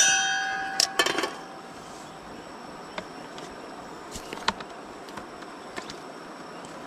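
A small metal cooking pot clanks down onto the pan supports of a portable butane gas stove and rings briefly with several clear tones, followed by a few more knocks about a second in and light scattered clicks.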